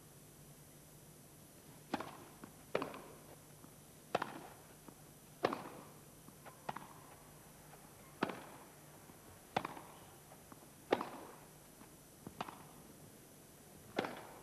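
Tennis rally on a grass court: a ball struck back and forth by rackets, about ten sharp hits roughly every second and a half, with fainter bounces between them.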